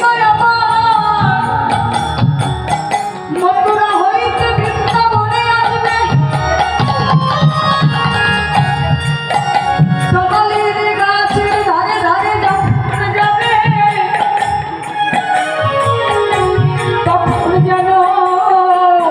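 Bengali devotional lila kirtan music: a woman sings a held, bending melody through a microphone over a steady hand-drum rhythm, with keyboard accompaniment.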